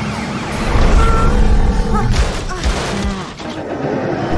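Animated cartoon soundtrack: background music over a heavy, low sound effect, with a couple of thuds a little after two seconds in.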